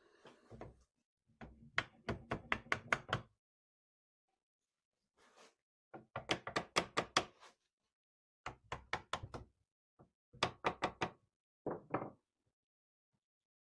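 Repeated knocking blows on the wooden arm joint of an antique child's rocking chair, struck to drive the arm and its dowels loose. The blows come in quick runs of several a second, about five runs with short pauses between.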